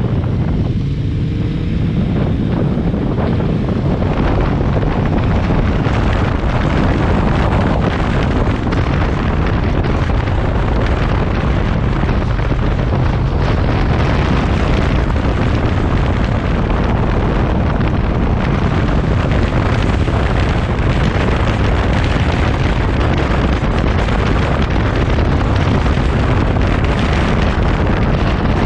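Motorcycle riding at road speed. A steady engine drone sits under heavy wind buffeting on the camera microphone.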